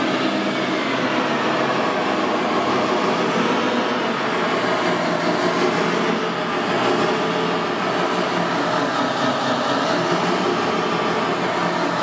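Large RC wheel loader running, its electric drive motors and hydraulic pump whirring steadily as it drives forward with the bucket raised.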